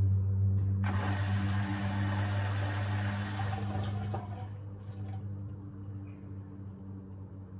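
Beko WTK104121A washing machine's drain pump humming, with a loud rush of water for about three seconds from a second in; the hum fades toward the end, as the machine moves from pumping out to redistributing the load before its spin.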